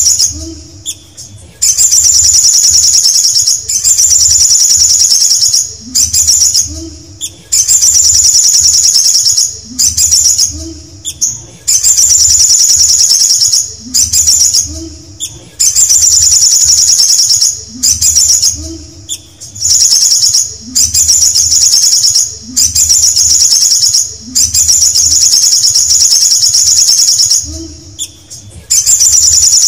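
Male olive-backed sunbird singing in a cage: a loud, high, rapid buzzy trill repeated about every two seconds, with short lower notes between the phrases.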